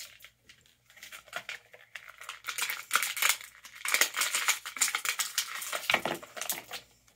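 Plastic packaging crinkling and rustling as hands rummage inside a cardboard box: a quick run of small, crisp crackles that gets busier after the first couple of seconds.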